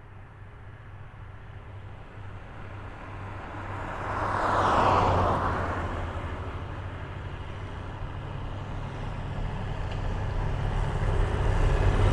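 Traffic on a highway: one car approaches and passes about five seconds in, its tyre and engine noise swelling and then fading with a falling pitch, over a steady low rumble of traffic. Another vehicle is approaching and growing louder near the end.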